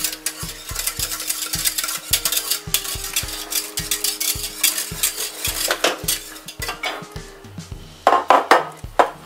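A utensil stirring gelatin powder into hot water in a pot, tapping and scraping against the sides about two or three times a second. Near the end come a few louder knocks as a glass baking dish is set down on the stone counter.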